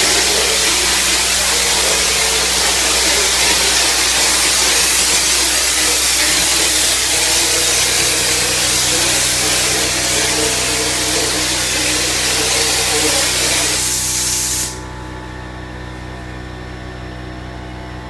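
Drywall texture hopper gun spraying thinned joint compound, a loud steady hiss of compressed air, over the steady hum of the pancake air compressor's motor. The spraying cuts off near the end, leaving the compressor running on its own.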